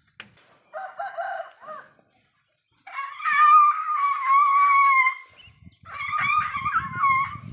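Roosters crowing three times in turn: a short crow about a second in, a long drawn-out crow of about two seconds, and another near the end. A low rough rumbling noise runs under the last crow.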